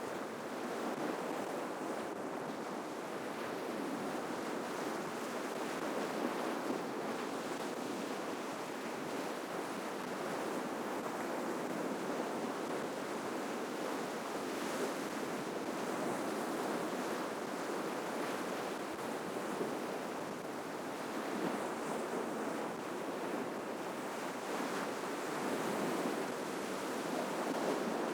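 Ocean waves breaking and washing on a shoreline: a steady rushing surf that swells a little now and then.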